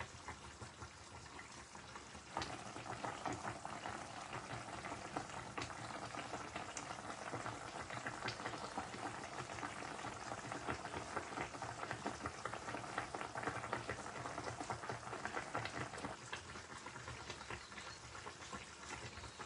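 Fish and yardlong bean curry sizzling and bubbling in the pan as its gravy cooks down. It gets louder about two seconds in and eases a little near the end.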